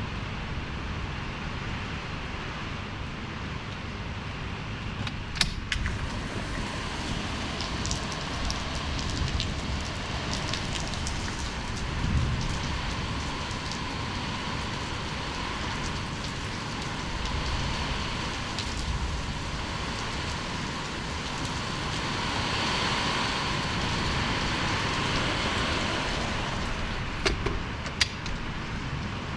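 Steady rushing noise of a storm: rain and wind. A sharp knock sounds about five seconds in and two more near the end.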